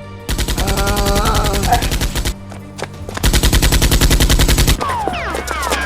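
Two bursts of rapid automatic gunfire, each lasting about two seconds, with a shout over the first burst. Near the end come several falling whistling sounds.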